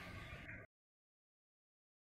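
Near silence: faint room tone that cuts off to dead silence under a second in.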